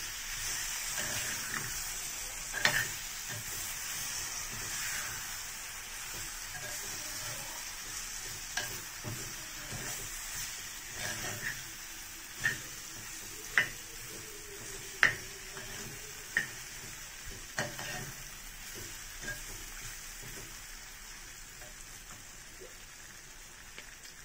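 Steel spoon stirring chopped salted raw mango in a terracotta clay pot, clicking and scraping against the pot a dozen or so times. Under it the mango's brine sizzles in the hot spiced oil, a steady hiss that slowly dies down.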